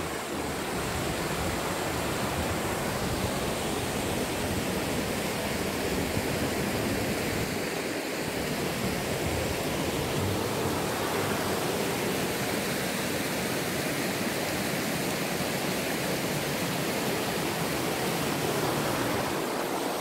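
Mountain stream rushing over rocks and small cascades, a steady, even rush of water.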